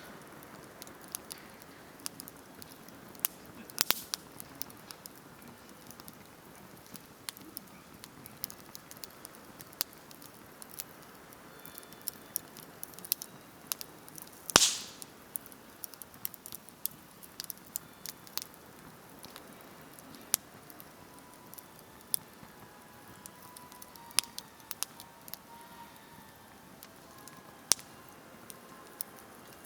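Wood campfire crackling: irregular sharp snaps and ticks over a low hiss, with one loud pop about halfway through.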